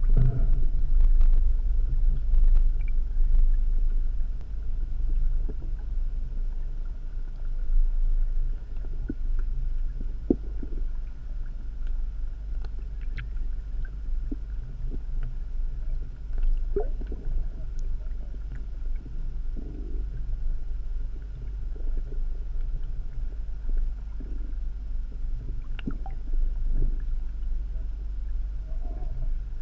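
Muffled low rumble of water moving around an underwater camera housing, with scattered faint clicks and ticks.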